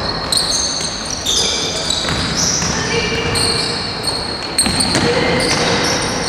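Basketball game sounds on a gym floor: sneakers squeaking again and again in short high squeals, the ball bouncing, and players calling out.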